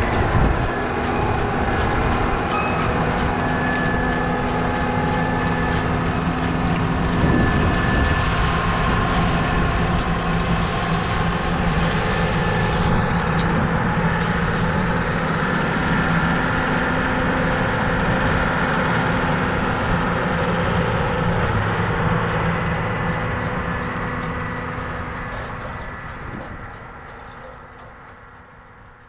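Cat Challenger 55 tracked tractor's diesel engine running steadily under load as it pulls a disk and packer through the soil. The sound fades away over the last few seconds.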